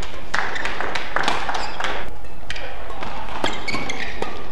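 Badminton rally: sharp, irregular racket strikes on a shuttlecock and players' footfalls on the court, with voices in the hall.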